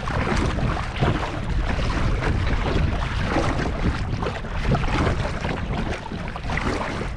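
Splashing strokes of a double-bladed kayak paddle dipping into choppy sea water, with wind buffeting the microphone as a steady low rumble underneath.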